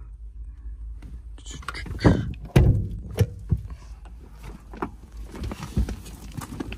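A string of clunks and knocks, the loudest two about two seconds in and lighter ones after, from parts of a rusty Fiat 126's body and fittings being handled.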